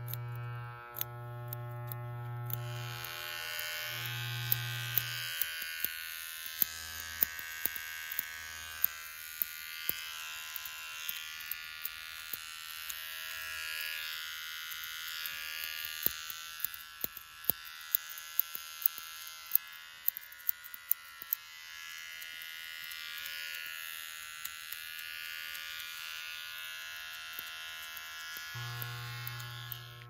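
Electric hair clippers buzzing in short spells, stopping about five seconds in. An electric shaver's higher, hissing whir, dotted with sharp clicks, runs through most of the rest, and the clipper buzz comes back near the end.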